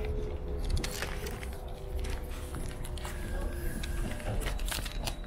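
Inside a tram: the car's steady low rumble and hum, with scattered small clicks and knocks from passengers moving about.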